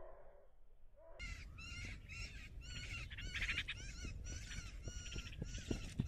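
Birds calling in a quick, dense run of short, repeated chattering notes that start abruptly about a second in, over a low rumble.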